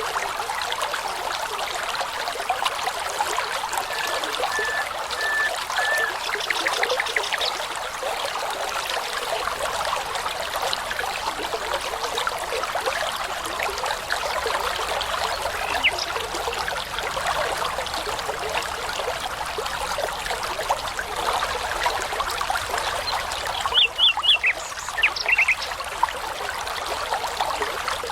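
Babbling brook: a steady rush of running water, with songbirds calling over it. A run of short, even whistled notes comes about four seconds in, and a louder burst of call notes comes near the end.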